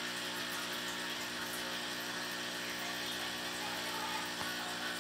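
Aquarium pump or filter running steadily: a constant electric hum under an even hiss of moving water.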